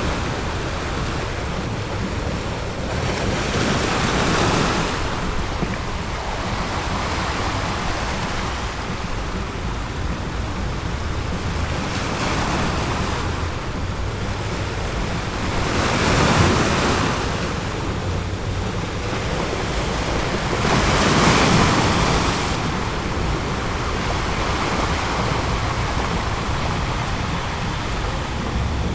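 Ocean surf: a steady rush of water with a low rumble, swelling louder three times as waves break and wash in.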